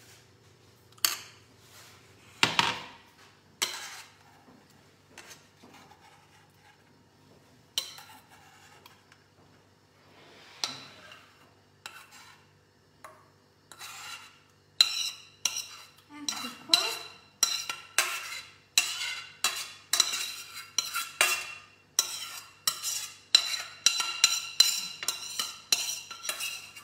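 A metal spoon scraping and tapping inside a stainless steel pan, scooping thick porridge out into glasses. Scattered clinks at first, then from about halfway in steady scraping strokes, two or three a second, with the pan ringing.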